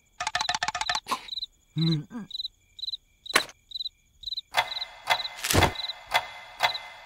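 Crickets chirping about twice a second as a night backdrop, with short cartoon sound effects over them: a quick rattle of clicks near the start, a brief grunt, scattered knocks, and one heavy thunk about two-thirds of the way through.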